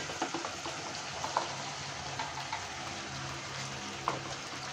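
Freshly added chopped vegetables sizzling steadily in hot tomato gravy in a cooking pot, with a few faint ticks.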